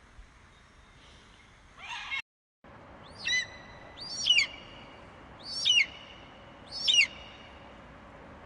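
A bird calling four times, about a second and a half apart, each call a loud, high, hooked whistle that sweeps up and then drops sharply. It follows a brief other animal sound that cuts off abruptly about two seconds in.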